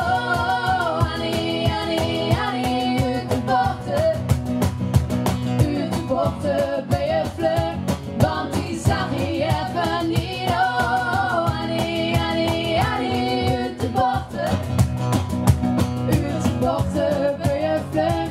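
A woman's voice singing a Dutch-language pop song over acoustic guitar and a steady beat.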